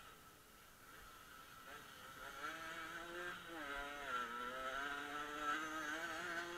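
Dirt-bike engine heard from the rider's own onboard camera. It is nearly quiet with the throttle shut at first, then picks up again from about a second and a half in. Its pitch rises and dips with throttle and gear changes.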